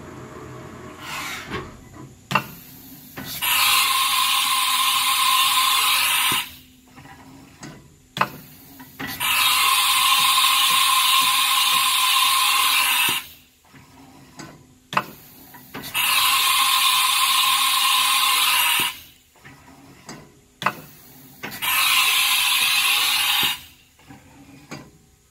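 Haas vertical milling machine cycling through tool changes with its umbrella tool changer. Four loud hisses of compressed air, each two to four seconds long, are separated by sharp clunks and faint motor whirs.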